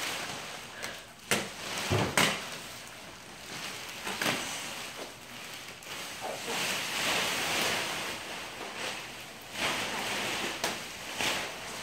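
Large sheets of clear plastic packaging and stretch wrap crinkling and rustling as they are pulled off a crate and bunched up, with a few sudden knocks.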